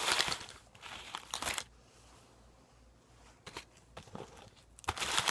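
A Dum Dums lollipop wrapper being crinkled and torn off by hand, in several short rustling bursts, the loudest at the start and near the end.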